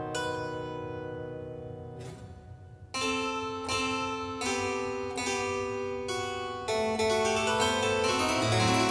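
Flemish harpsichord after Ruckers playing a recitative passage. A held chord dies away, there is a short pause, then chords are struck about every three-quarters of a second, with busier figures near the end.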